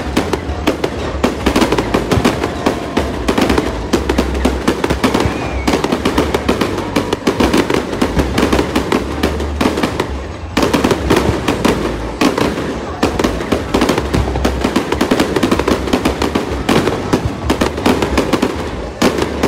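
Aerial fireworks display: shells bursting overhead in a rapid, continuous barrage, the bangs coming so quickly they run together, with a brief lull about ten seconds in.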